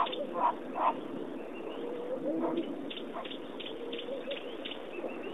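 Short animal calls, three in quick succession in the first second, then fainter scattered chirps over a low, steady murmur.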